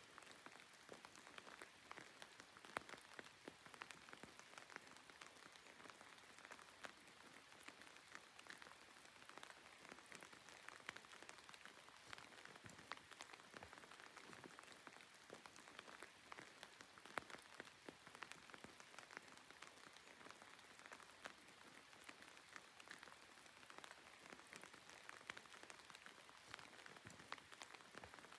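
Faint, steady patter of light rain: a dense scatter of small drop ticks with no rhythm.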